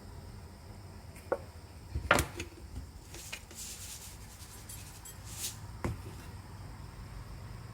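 A few light knocks and clicks of objects being handled, the loudest about two seconds in, with a couple of brief rustling swishes between them.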